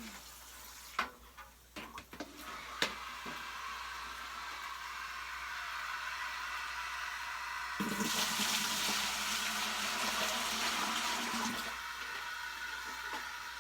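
Water rushing from a leaking house water pipe that cannot be shut off, with a few sharp knocks of a pan or bucket being handled in the first few seconds. About eight seconds in the water noise grows much louder for about four seconds as the catch pan is emptied, then falls back.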